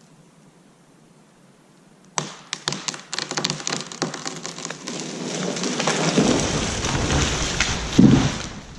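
A red maple tree falling: about two seconds in a sharp crack, then branches snapping and crackling through the canopy in a growing rush, ending in a heavy thud near the end as the trunk hits the ground.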